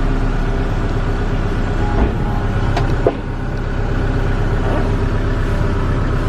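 Kubota L6060 tractor's diesel engine running steadily, heard from inside the cab, with a few short knocks or clunks about 2 and 3 seconds in.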